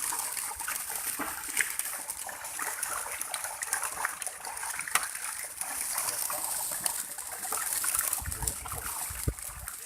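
Water splashing and trickling in many small clicks and drips, with a low rumble for a second or so near the end.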